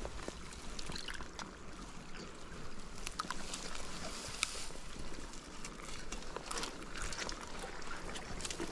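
Steady rush of flowing river water, with scattered light clicks and rustles from a landing net being handled in wet grass.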